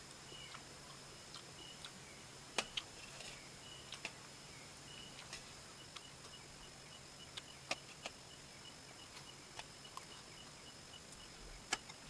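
Quiet eating sounds of instant noodles being eaten: scattered sharp clicks and taps, a few louder ones, over a faint steady hiss and hum.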